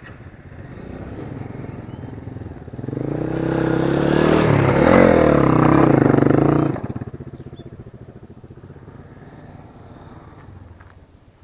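A motorcycle engine that rises in pitch and loudness as it revs and pulls away. It is loudest from about four to seven seconds in, cuts back suddenly, then continues as a low, fading putter.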